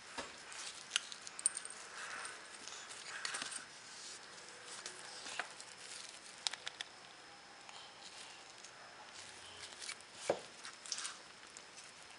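Faint scattered clicks and rustles of gloved hands handling small steel revolver parts on a towel.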